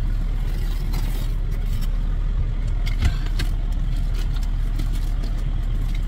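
Semi-truck's diesel engine idling, a steady low rumble heard inside the cab, with a single thump about three seconds in and a few light knocks.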